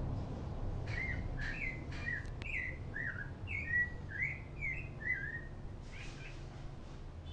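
A small songbird chirping a quick series of short, slurred notes that rise and fall in pitch, over a steady low hum.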